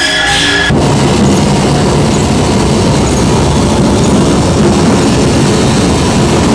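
A short stretch of sustained musical tones cuts off abruptly under a second in. A loud, dense, steady mechanical rumble takes over, heaviest in the low range, like heavy rolling machinery.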